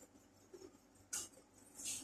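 Hands working bread dough on a stainless-steel worktable: two short, hissy scrapes, one about a second in and one near the end.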